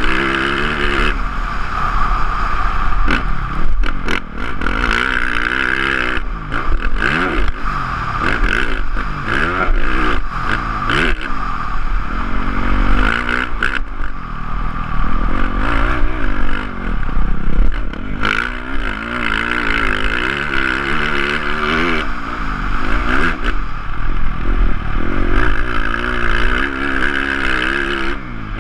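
Motocross bike engine revving hard, its pitch climbing and dropping over and over as the rider works the throttle and gears around the track, with knocks and clatter from the bike over the rough dirt.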